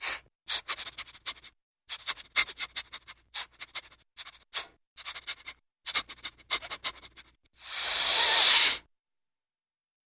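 A wild animal's call: runs of rapid sharp clicks in short clusters, then a single hiss lasting about a second near the end.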